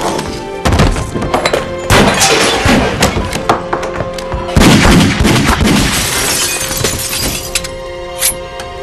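Loud, noisy music or soundtrack full of repeated crashing and banging hits, with a few steady held tones in the second half.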